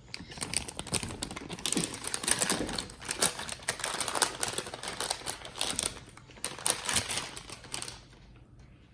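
Plastic ration packaging crinkling and crackling as a hot entree pouch is pulled out of its heating package: a rapid run of small clicks and rustles that dies down near the end.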